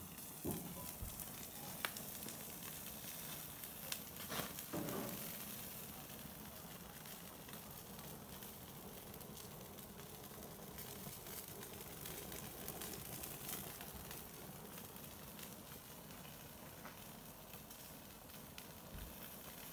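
Salmon pieces sizzling in a hinged wire grill basket over an open flame, a steady faint hiss. A few light clicks and knocks come in the first five seconds.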